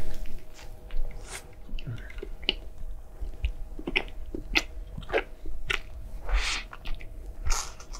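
Close-miked mouth sounds of someone biting and chewing a Gran Crispy McBacon burger: irregular wet smacks and clicks, with a fresh bite near six seconds in.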